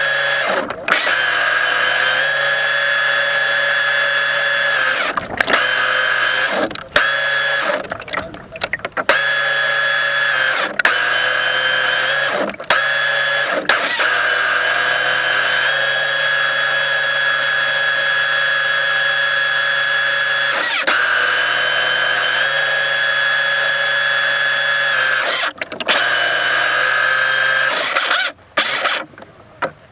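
Mini RC boat's motor running at speed, a steady high whine picked up close by the camera riding on the boat. It cuts out for a moment about ten times as the throttle is eased, and drops away near the end.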